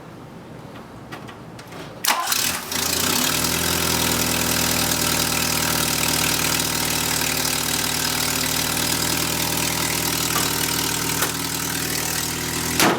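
1979 Volkswagen Rabbit's gasoline four-cylinder engine cranking and catching about two seconds in, then idling steadily, with its manifold-to-downpipe exhaust gaskets freshly replaced to cure an exhaust leak. A short sharp sound near the end.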